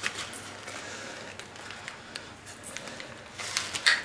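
Plastic bag of brown sugar crinkling as the sugar is poured from it into a measuring cup, with scattered light ticks and a louder burst of crinkles near the end as the bag is lifted away.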